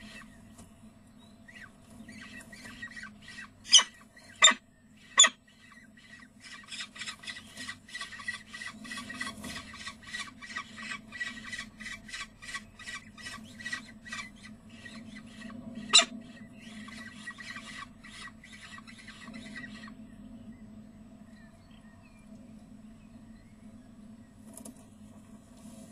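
Peregrine falcon chicks calling rapidly and repeatedly while the adult tears prey for them at the nest. Sharp loud knocks come three times a few seconds in and once about two-thirds through. The calling stops several seconds before the end.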